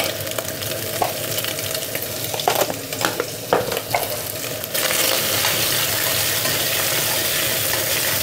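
Prawns frying in hot fat in an enamelled cast-iron casserole, crackling and spitting. A few light knocks come in the middle, and about five seconds in the sizzle suddenly becomes a louder, steadier hiss.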